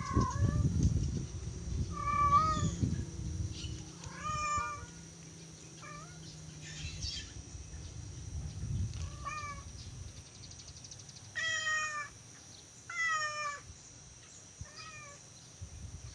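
Domestic cat meowing repeatedly: short, falling meows every second or two, the two loudest in the second half. A low rumble runs under the first three seconds.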